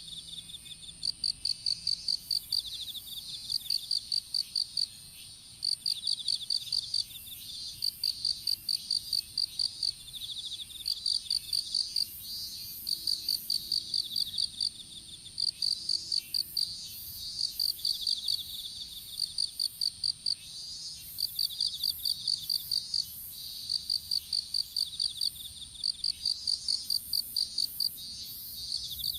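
Insects singing: one chirps in repeated bursts of about ten rapid pulses, each burst about a second long, over a steady, continuous high-pitched trill.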